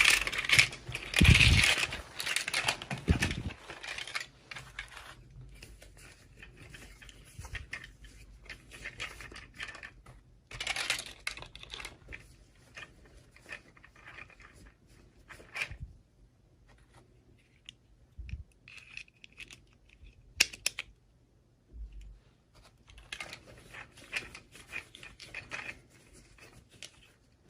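Toy packaging being unwrapped by hand: intermittent crinkling, tearing and small clicks of plastic. It is loudest in the first few seconds and comes again in bursts near the middle and toward the end.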